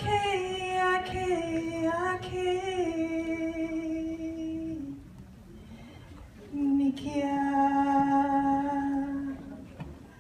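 Solo unaccompanied voice singing two long held notes: the first lasts about five seconds and dips slightly in pitch partway, and after a short pause a lower note is held steady for about three seconds.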